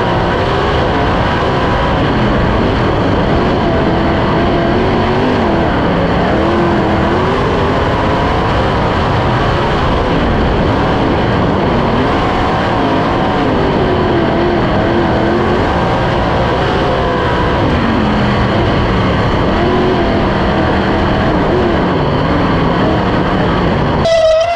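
A 410 sprint car's methanol-burning V8 at full race speed, heard from a camera mounted in the car. Its pitch rises and falls every few seconds through the turns. Near the end it cuts off abruptly to a short, steady, horn-like tone.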